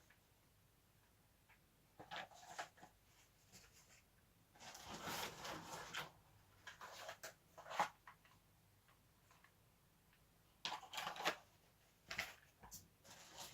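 Packaging being handled during an unboxing: intermittent rustling, rubbing and scraping in short bursts, with the longest stretch about five seconds in and a sharp click around eight seconds in.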